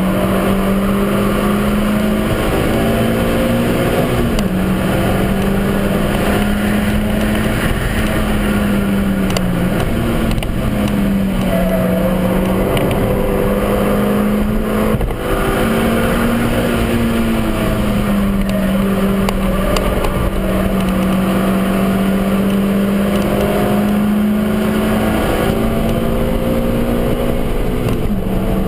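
Suzuki Swift Sport's four-cylinder engine running hard at high revs, heard from inside the stripped-out cabin over tyre and road noise. Its pitch dips and climbs again several times as the car is driven flat out.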